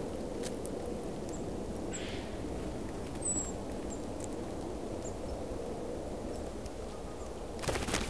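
Steady low outdoor rumble with a faint hum, under a few thin, high chirps from small birds. A Eurasian jay pecking at sunflower seeds on a wooden stump feeder makes a few clicks, and near the end there is a brief flurry as it flies off.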